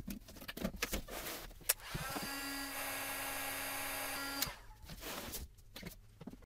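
Rummaging and knocking in a cardboard box, then a 1600-watt heat gun switched on: its fan whine rises, runs steadily for about two seconds and cuts off abruptly.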